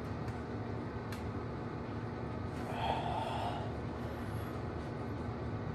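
A man's forceful breath of effort, a snort-like exhale about three seconds in, as he strains to curl a heavy bar, over a steady low background hum. A short click comes about a second in.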